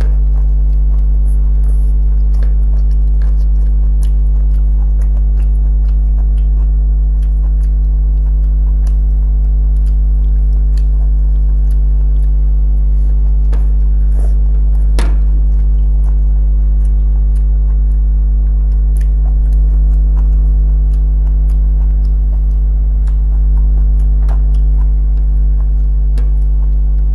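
Loud steady low hum, with faint scattered chewing and small mouth and finger clicks from someone eating by hand. A sharper click comes about halfway through.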